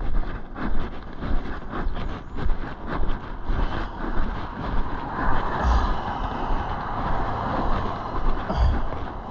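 Road traffic: a vehicle passes, swelling to its loudest about five to eight seconds in, over a steady rumble with a few low thumps.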